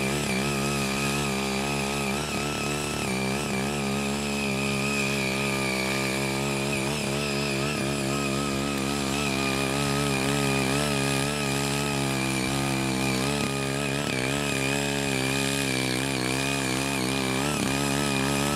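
Ching Yee CY80 mini cultivator's small engine running steadily under load, its pitch wavering slightly, as the rotary tines churn through soil and weeds.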